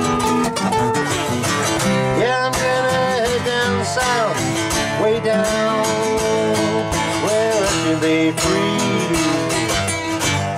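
Two acoustic guitars strummed and picked together, with a man's voice singing a melody over them.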